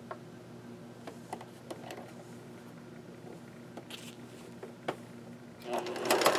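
Pfaff Select 1546 sewing machine stopped, with a faint steady hum and a few small clicks and rustles as the fabric is repositioned by hand. The machine starts stitching again near the end: a fast, even run of needle strokes.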